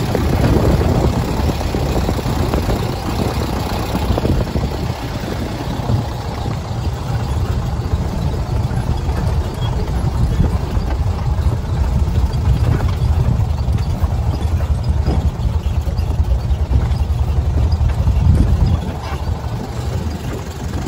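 Open dune buggy's engine running as it drives over a bumpy dirt road, with wind rumbling on the microphone.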